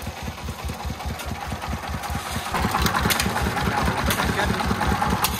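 Single-cylinder diesel engine of a công nông farm truck idling with an even, steady chugging, growing louder and harsher about two and a half seconds in.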